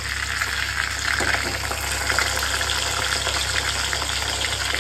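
Pomfret frying in hot oil in an aluminium kadhai: the oil sizzles and crackles steadily as the fish is turned with a metal spatula.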